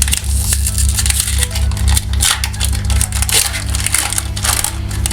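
Foil wrapper of a trading card booster pack being torn open and handled, a dense run of crinkling and crackling.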